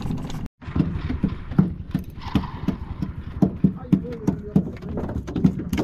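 A quick run of hollow knocks, about three a second, starting after a brief cut-out near the start.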